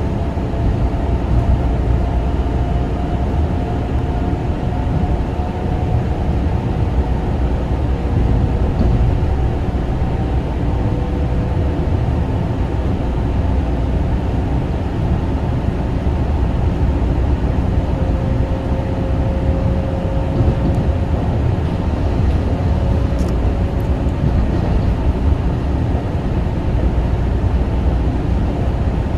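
Kawasaki M9 electric railcar running along the line, heard on board: a steady low rumble of wheels on rail, with faint motor tones that drift slowly in pitch.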